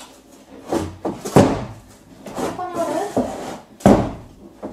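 Crowbar prying wood-grain wall panels off their tacker staples, with sharp knocks and cracks of the panel about a second in and again near the end, and a wavering creak in between.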